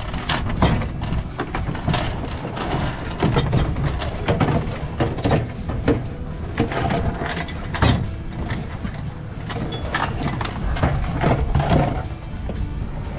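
Small boat under way: a steady low engine rumble with irregular knocks and thumps, one or two a second, as it moves through the water.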